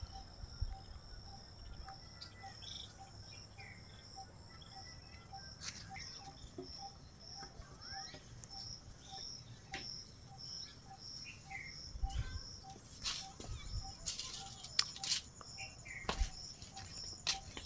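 Crickets chirping in an even rhythm, about two chirps a second, over a steady high insect drone, with short bird chirps now and then. A few low thuds come in the second half.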